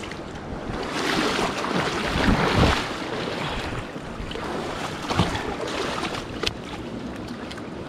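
River water rushing, with wind buffeting the microphone; the noise swells for a couple of seconds about a second in, and a few sharp ticks sound above it.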